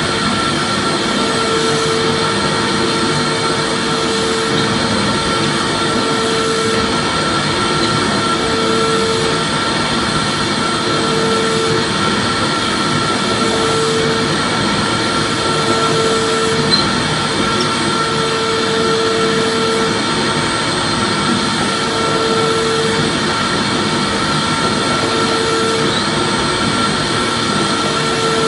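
Electric vacuum cleaner running continuously: a steady rushing motor noise with a thin whine held on one pitch. A lower hum cuts in and out every second or two.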